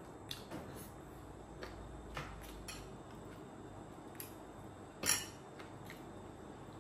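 Eating at a table by hand: scattered small clicks and taps of ceramic plates and a metal spoon, with one louder, short sharp sound about five seconds in.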